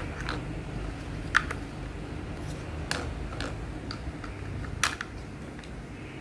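Small hard plastic toy building pieces clicking and tapping together, a scattering of sharp irregular clicks, the loudest about a second and a half in and again near the end, over a low steady background hum.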